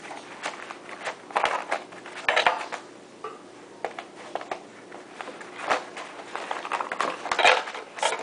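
Metal gun-cleaning rod sections and rod tips clinking and rattling as they are handled, with scattered clicks and a few short ringing clinks.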